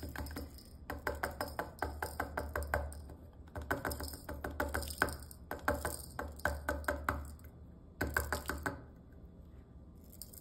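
Small resin diamond-painting drills rattling and clicking as they are poured from a plastic tray into a small plastic jar, in several bursts of rapid clicks with short pauses between.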